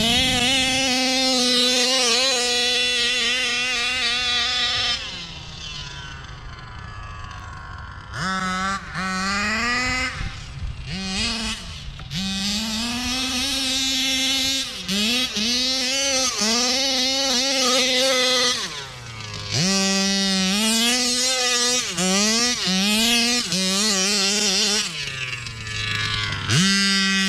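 Taylor 35cc RC car's small two-stroke gas engine running under repeated throttle: it revs up, holds, and drops back over and over, with a longer spell at idle about a quarter of the way in and another near the end.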